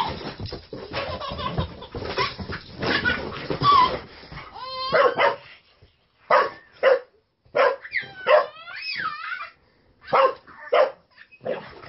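Boxer dog barking in short, separate barks, starting about five seconds in after a stretch of scuffling noise, with a wavering call in the middle.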